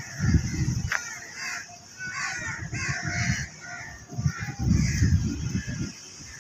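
Crows cawing repeatedly in short calls. Under them come three spells of low rumble, which are the loudest sound, and a steady high hiss runs throughout.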